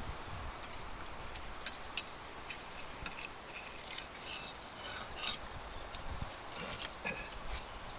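Scattered light clicks and short scrapes of hand tools on roof tiles and mortar, with a sharper click a little past five seconds in.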